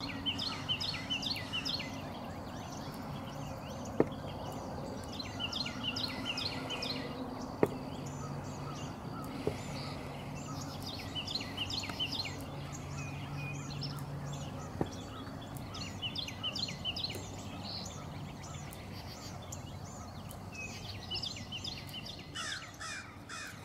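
Songbirds singing: short bursts of quick, high song phrases that repeat every few seconds. A low steady hum runs underneath, and a few sharp clicks stand out, the loudest at about 4 and 7.5 seconds in.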